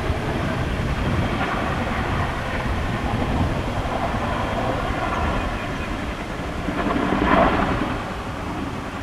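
Boeing CH-47 Chinook tandem-rotor helicopter's rotors and twin turbine engines, heard as a steady low rumble that swells briefly about seven seconds in.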